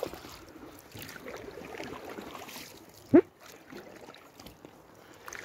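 Kayak paddle strokes with water splashing and trickling around the hull as the kayak turns on a river, and one short, sharp, loud sound about three seconds in.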